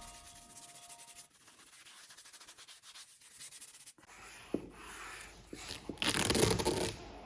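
Music fading out, then scrubbing or rubbing on a surface that starts about four seconds in, grows louder about six seconds in and stops just before the end.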